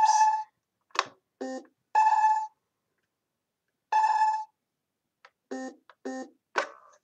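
Kidde P4010 smoke alarm beeping with its button held down: three short pitched beeps about two seconds apart, the confirmation beeps that close its wireless setup. A few brief clicks and short low sounds come between the beeps.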